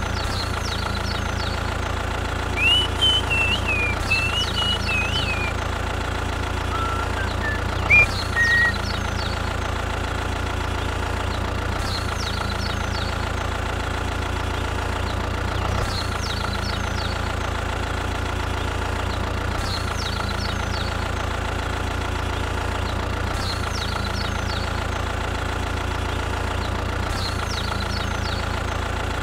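Tractor engine sound running steadily at idle with an even chug. A few high whistled chirps come in about three seconds in and again near eight seconds.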